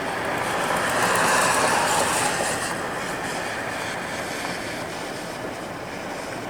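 Intermodal freight train cars rolling past on the rails, a steady rushing noise that swells about a second in and then slowly eases off.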